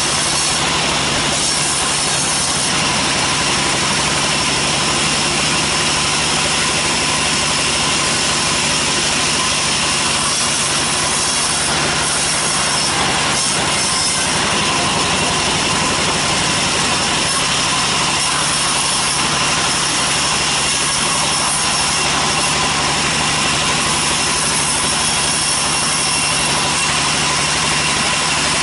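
Large sawmill bandsaw running loud and steady as its blade rips a teak log lengthwise into slabs, a continuous machine noise with steady high tones through it.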